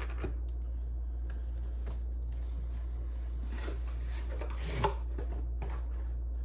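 Light rustling and handling of a model locomotive's packaging, with a small sharp click a little before five seconds in, over a steady low hum.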